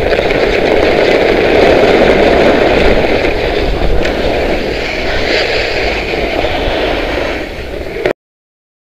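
Skis of a Trikke Skki scraping over snow during a fast downhill run, with wind rushing over the microphone as a steady rumbling roar. Near the end it passes over chunky, broken snow, and the sound cuts off abruptly.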